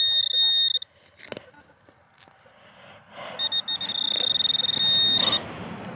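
Metal detector sounding a steady high-pitched target tone, which the detectorist reads as a penny signal. The tone stops under a second in, then sounds again for about two seconds over a rustling noise.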